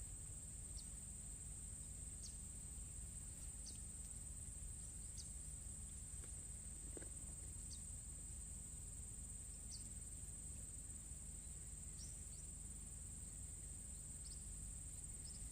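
A steady, high-pitched insect drone, like crickets or cicadas, with short high chirps every second or so over a faint low rumble.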